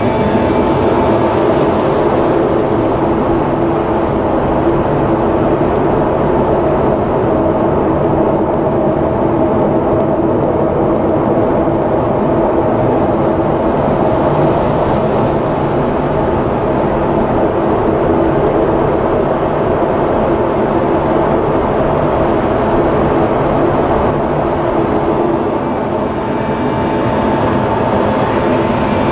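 Inside an F-16 fighter's cockpit during display manoeuvres: a loud, steady rush of airflow and Pratt & Whitney F100 turbofan noise, with a steady multi-tone hum under it. The level dips slightly near the end.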